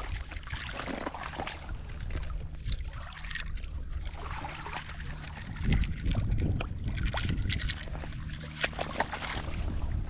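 Shells crunching and clinking underfoot on a shell-covered beach, in irregular clusters of sharp clicks, over a steady low rumble.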